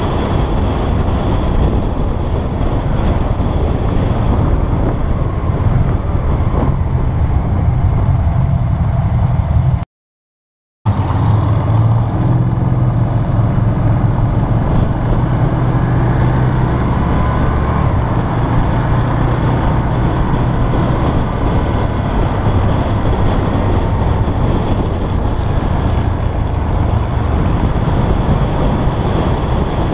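Can-Am Spyder RS-S three-wheeled motorcycle's V-twin engine running at road speed under heavy wind rush on the camera microphone. The sound cuts out completely for about a second around ten seconds in.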